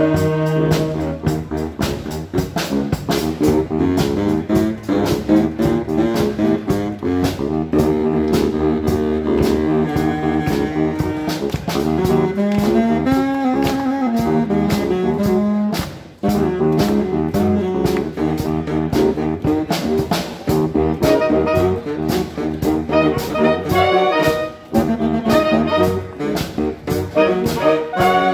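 A wind band with saxophones plays a piece in held, many-voiced chords, with a brief break about halfway through.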